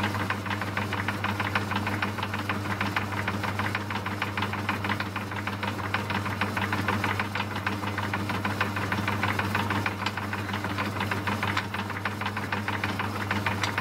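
Myford lathe's motor and drive running steadily: a low hum with a fast, even rattle through it.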